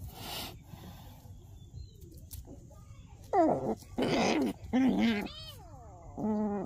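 Domestic cat meowing several times in short calls, starting about three seconds in, some falling in pitch. A brief rustling noise comes at the start.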